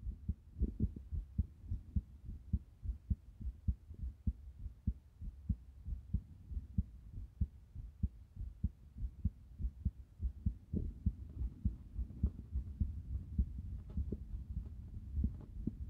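Human heartbeat picked up through the body: fast, low thumps in an uneven rhythm, an irregular heartbeat.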